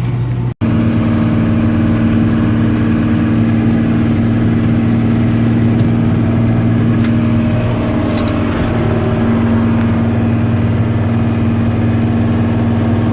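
Combine harvester running steadily at working speed, an even engine hum with a constant pitch. It cuts out for an instant about half a second in, then resumes unchanged.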